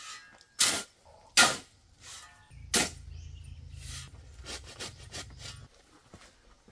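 A steel shovel blade driven into a pile of gravel and sand three times, each a sharp, short scrape, while the aggregate is turned for a concrete mix. A low rumble runs for about three seconds from the middle, with a few faint clicks near the end.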